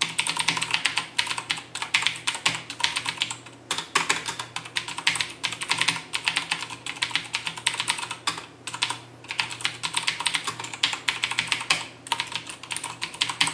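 Random typing on a CM Storm Quickfire TK mechanical keyboard with Cherry MX Blue switches: a dense, fast run of the switches' characteristic sharp clicks, broken by a few short pauses.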